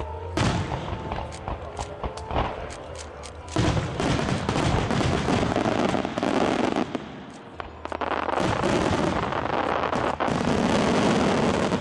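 Starmine fireworks barrage: shells launching and bursting in quick succession, with sharp bangs early on building into two long stretches of dense, continuous crackling and booming, separated by a brief lull about seven seconds in.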